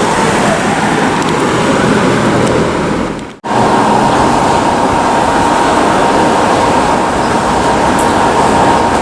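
Steady city street traffic noise. It cuts out abruptly a little over three seconds in, and when it resumes a steady high tone runs beneath it.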